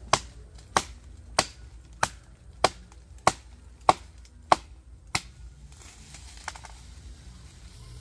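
Steady chopping with a blade: nine sharp chops, about one and a half a second, stopping about five seconds in.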